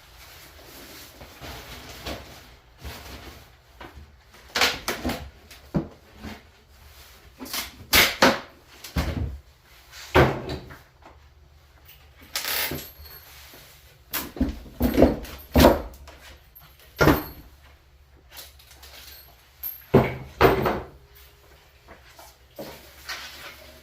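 Irregular knocks, thumps and scrapes as the packaging and parts of a new wood lathe are handled and taken apart, a dozen or so sharp hits spread unevenly with quieter rustling between.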